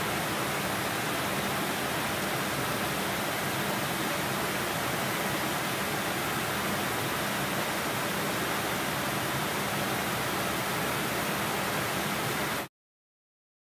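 Airliner cabin noise at cruising altitude: a steady, even rush of engine and airflow noise with a faint low hum, cutting off abruptly near the end.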